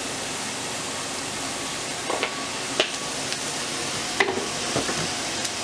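Chopped onion sizzling in hot oil in a stainless steel pot, a steady hiss. A few light clicks and knocks stand out about two, three, four and five seconds in.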